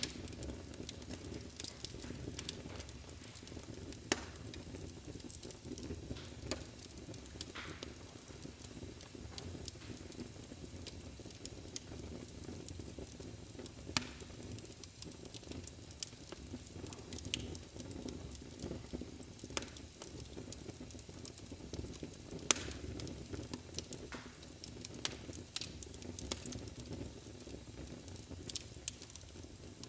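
Wood fire burning in a fireplace: a steady low rumble of flames with irregular sharp crackles and pops, a few of them louder.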